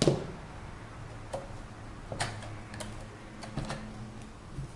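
Scattered light clicks and taps of handling: a hot glue gun set down on the table and a craft-foam strip pressed onto a thin plastic acetate box. The sharpest click comes right at the start, then about five softer ones spread out irregularly, over a faint low hum.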